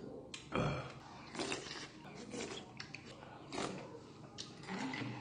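Eating at the table: a metal spoon clicking and scraping against a stone pot (dolsot) and small side dishes, mixed with short bursts of slurping and chewing.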